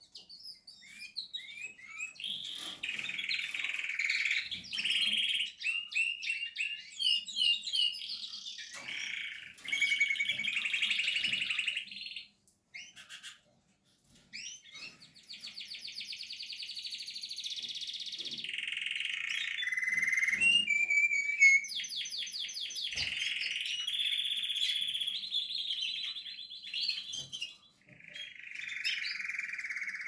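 Portuguese Harlequin canary singing a long, varied song of rapid trills, rolls and whistles, with a brief pause near the middle.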